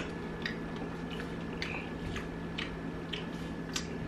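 Close-miked chewing and lip-smacking, irregular small wet mouth clicks about two or three a second.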